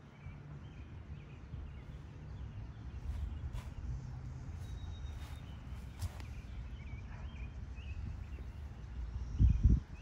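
Outdoor ambience: a steady low rumble of wind on the microphone, with short bird chirps scattered through it. A few heavy thumps come near the end.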